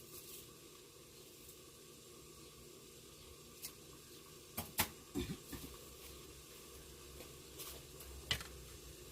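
Pork stir-frying in a pan with a steady low sizzle, with a few sharp clacks of a utensil against the pan, clustered in the middle and once near the end.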